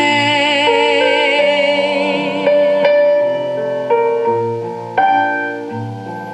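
Recorded ballad played through a 6P25 triode-connected single-ended valve amplifier: a singer holds the last word "today" with vibrato, then piano chords carry on alone.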